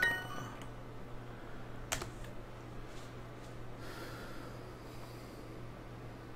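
Computer keyboard being typed on: a few scattered keystrokes with pauses between them, over a steady low hum.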